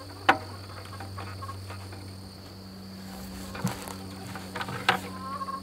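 Sharp plastic clicks and taps as a chicken-waterer cup and its washer are handled and fitted against a plastic 5-gallon bucket, the loudest just under a second in and again near the end. Under them runs a steady high insect trill and a low hum.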